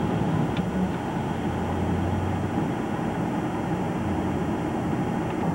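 A vehicle engine idling: a steady low hum that fades and returns, under a constant hiss.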